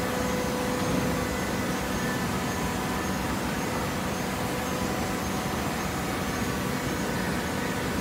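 Automatic horizontal hydraulic waste-paper baler running: a steady machine hum with a few faint steady whining tones over it, and no distinct strokes or knocks.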